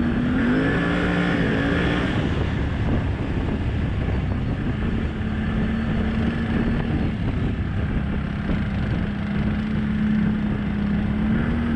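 ATV engine running steadily with a low rumble, its pitch wavering up and back briefly near the start.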